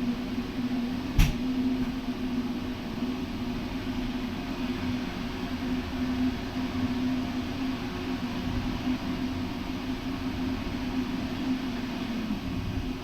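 Steady mechanical drone of a ship's machinery, with a constant low hum, and one sharp click about a second in.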